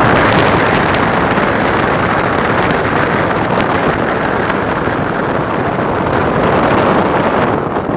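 Wind blowing across the microphone: a loud, even rushing noise with no pitch, with a few light ticks in the first few seconds.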